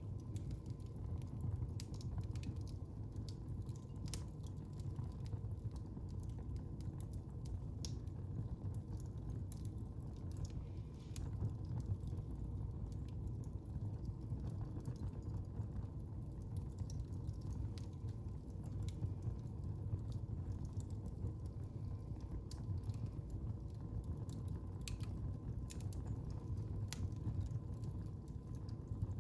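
Wood fire in a fireplace crackling, with scattered sharp pops at irregular intervals over a steady low rumble of the flames.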